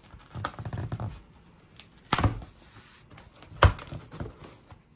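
Large cardboard shipping box being pulled open by hand: cardboard scraping and rustling, with two sharp knocks about two and three and a half seconds in, the second the loudest.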